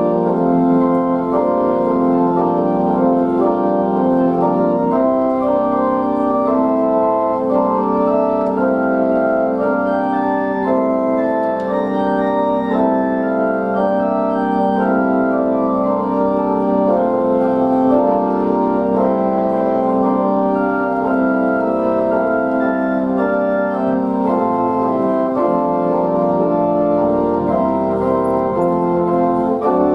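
Organ music: sustained chords that change every second or so over a held low bass note, at a steady level throughout.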